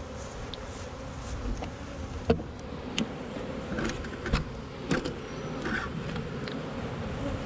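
Honey bees humming steadily around an open nuc box, with a few sharp knocks of wooden hive frames being worked loose and lifted out, the loudest about two seconds in.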